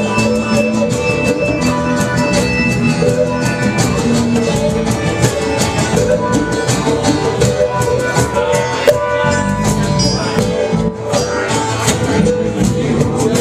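Live rock band playing an instrumental jam, with sustained guitar notes over a steady drum beat.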